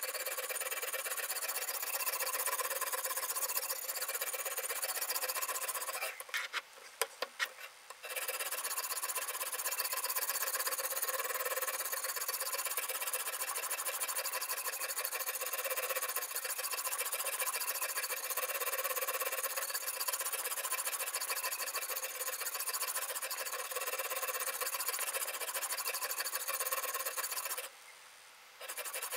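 Sharpening stone on a guided-rod knife sharpener scraping back and forth along a Damascus-steel kitchen knife's edge, a steady rubbing with a faint squeal. The scraping stops for about two seconds around six seconds in, with a few light clicks, and stops again briefly near the end.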